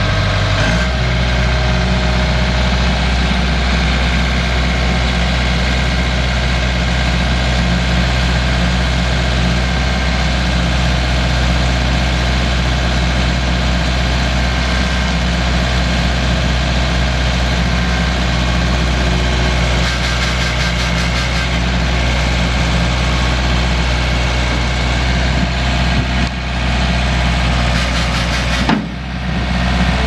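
The Case 1845C skid steer's Cummins 4BT four-cylinder diesel engine running steadily, its tone shifting slightly about a second in and dipping briefly twice near the end.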